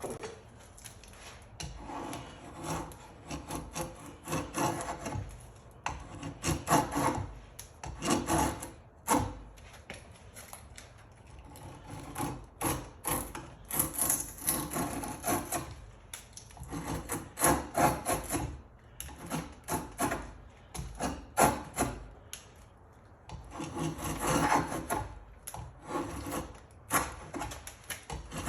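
Drawknife shaving a wooden leg, roughing in its taper: short rasping pull strokes in quick runs of several, with brief pauses between the runs.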